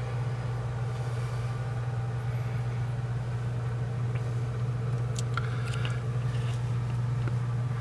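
A steady low hum, with a few faint clicks about five to six seconds in.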